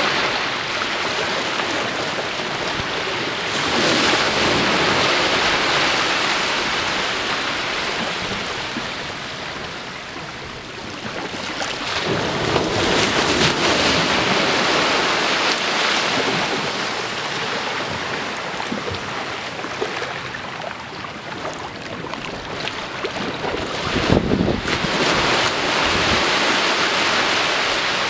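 Small surf breaking and washing up a sandy beach, a hiss of water that swells and fades three times as successive waves come in and draw back.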